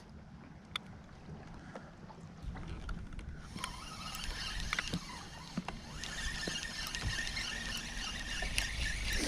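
Steady low rumble of wind and water around a small fishing boat, growing louder a few seconds in, with scattered faint clicks and a faint steady whine joining about six seconds in.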